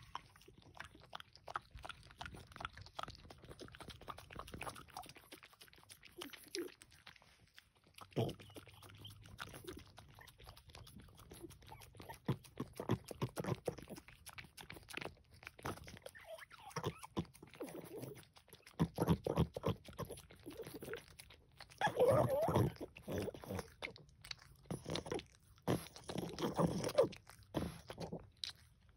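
A French bulldog licking and lapping whipped cream: quick runs of wet tongue smacks and lip-licking. The bouts grow louder and denser in the last third.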